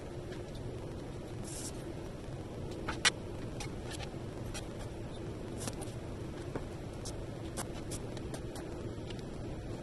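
Sheet of textured glass being moved and handled on a plastic cutting mat: scattered light clicks and taps, with one sharper click about three seconds in, over a steady low hum.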